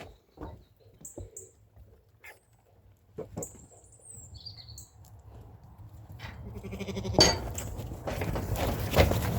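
Sheep bleating in a handling pen, with scattered knocks and a sharp bang about seven seconds in, after which a louder rough scuffling noise carries on.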